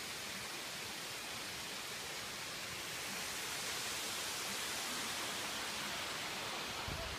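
Steady rushing of a distant waterfall, growing slightly louder about halfway through.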